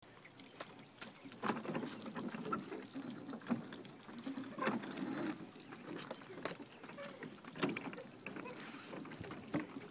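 Water lapping and sloshing around a floating wooden dock, with a few irregular knocks and thumps.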